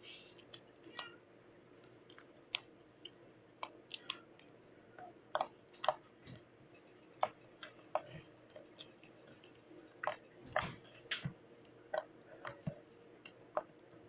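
Slime being squeezed and poked by hand, giving irregular wet clicks and pops, about one or two a second.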